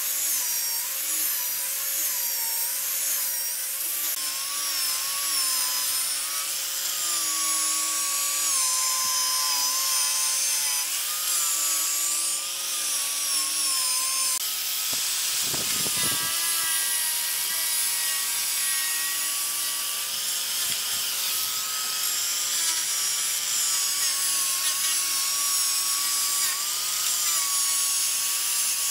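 Electric angle grinder fitted with a sanding pad, running and sanding pallet-wood boards: a steady abrasive hiss with a motor whine that wavers in pitch as the pad is pressed on and eased off the wood.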